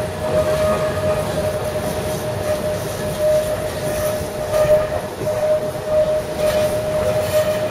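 Tram passing close by on its rails: a rolling rumble with a steady single tone held over it.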